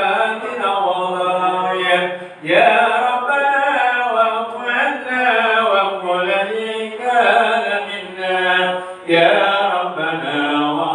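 Voices chanting Islamic dhikr, a melodic recitation in long held phrases, with short breaks about two seconds in and again near nine seconds.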